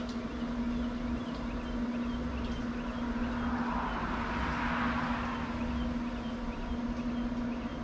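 Steady low hum of a running Pit Boss pellet smoker, with a rush of noise that swells and fades about three to five seconds in.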